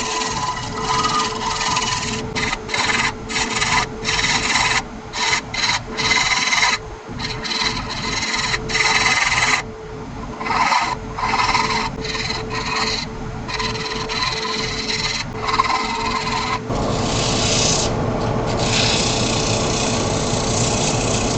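Wood lathe running with a steady motor hum while a turning tool cuts the spinning laminated-wood lid knob in many short scraping passes. From about three-quarters of the way through, the cutting becomes one continuous scrape.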